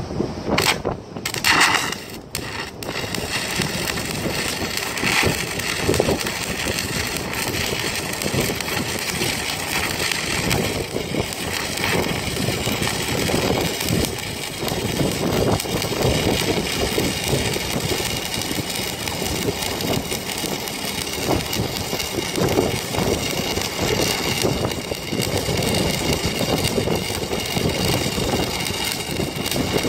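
Arc welding: the welding arc crackling and sizzling steadily, after a few short clicks at the start.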